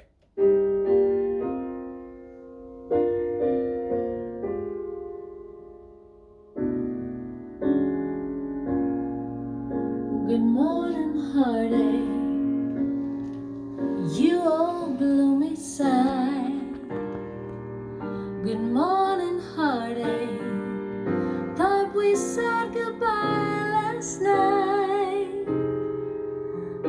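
Recorded music: a slow song opening with piano chords that ring out and fade, then a woman singing with vibrato over piano from about ten seconds in.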